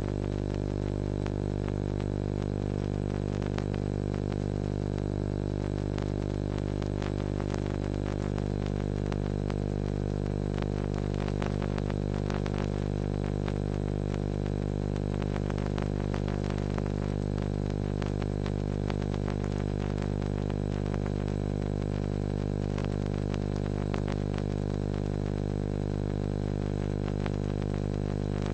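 Steady electrical hum with many overtones, unchanging throughout, with faint crackle.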